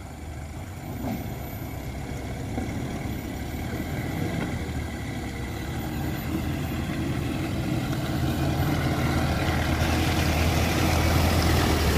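Engine of a small four-wheel-drive pickup driving slowly through deep mud, growing steadily louder as it approaches.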